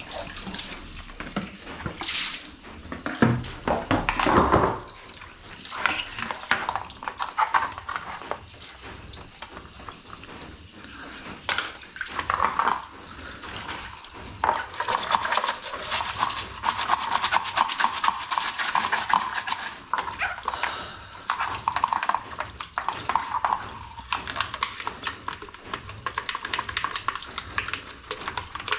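Washing-machine parts being scrubbed with a brush under running water: a steady scratchy rubbing with water splashing, and a few hard plastic knocks in the first few seconds.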